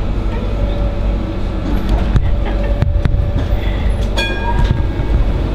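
Tram rolling slowly over street track, heard from the cab: a steady motor and wheel rumble, with a few sharp wheel clacks over rail joints about two to three seconds in and a short high ringing tone about four seconds in.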